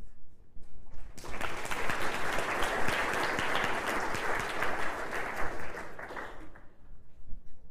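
Audience applauding, starting about a second in, holding steady for a few seconds and dying away about six seconds in.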